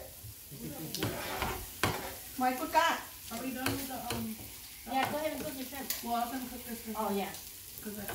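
Meatballs and shrimp sizzling on an electric tabletop griddle, with a plastic spatula scraping and clicking against the plate. People talk over it.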